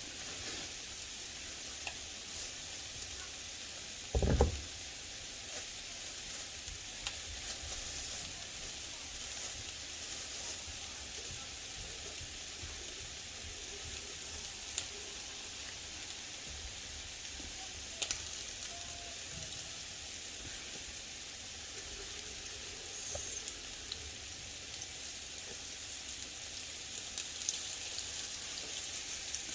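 Marinated chicken frying in a little oil in a pan: a steady sizzle, with one loud thump about four seconds in and a few faint clicks.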